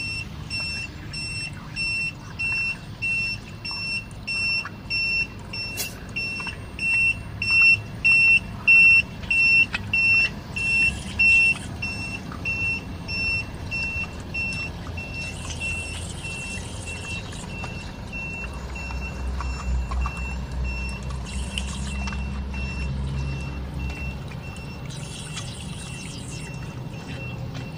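Hino 500 truck's reversing alarm beeping a single high note about one and a half times a second, loudest partway through and then fading, over the low running of its diesel engine, which grows louder later on as the truck moves across the grass.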